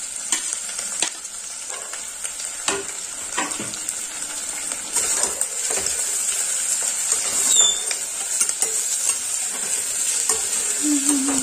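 Sliced onions sizzling in hot oil in a steel pressure cooker, stirred with a metal slotted spoon that clicks and scrapes against the pot now and then.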